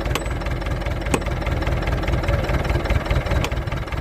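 Bulldozer diesel engine running steadily with a low rumble, with three sharp metallic knocks through it.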